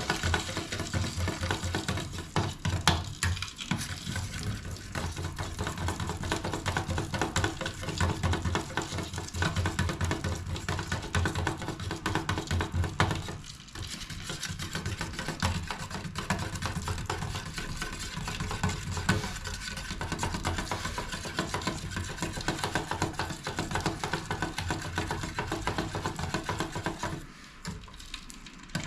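Food sizzling in a frying pan while being stirred, with continuous crackling and scraping that eases briefly about halfway through and again near the end.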